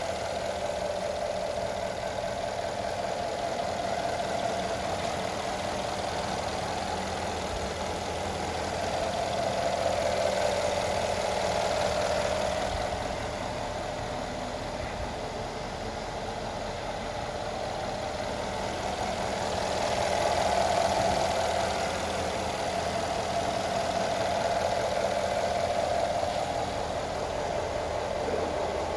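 Mercedes-Benz M278 4.6-litre twin-turbo V8 idling steadily, swelling slightly in level twice. It runs smoothly, its cylinder-six misfire cured by a new exhaust valve and valve seat.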